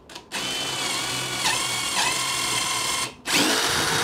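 Cordless DeWalt drill boring a shelf pin hole through the guide of a Kreg shelf pin jig into a cabinet side. The motor runs for about three seconds and dips in pitch twice as the bit bites, stops briefly, then runs again in a shorter, louder burst near the end.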